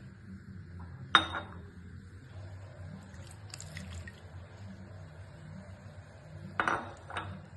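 Kitchen utensils knocking and clinking against a mixing bowl while pancake batter ingredients are added: a sharp knock with a short ring about a second in, lighter clinks in the middle, and two more knocks near the end.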